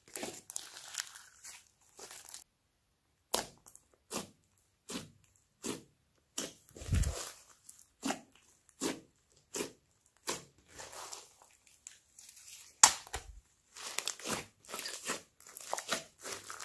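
Hands squeezing, stretching and folding a large lump of clay slime studded with foam beads, making wet squelches, pops and crackles about once or twice a second. There is a short pause about three seconds in, and one sharp pop about three-quarters of the way through is the loudest sound.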